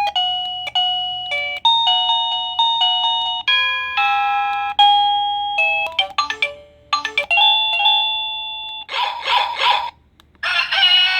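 Plug-in wireless doorbell receiver playing one electronic chime melody after another as its ringtones are stepped through, each tune breaking off abruptly when the next starts. Near the end the chimes give way to a pulsing trill, then, after a short pause, a ringing trill.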